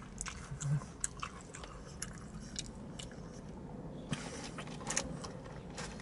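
Close-up chewing and biting of battered fried whiting, with short crisp crunches scattered irregularly through the chewing.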